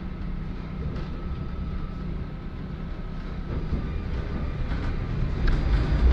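Tram running along a city street, heard from inside the car: a steady low rumble from the wheels on the rails and the motor, with a faint steady whine. It grows louder near the end.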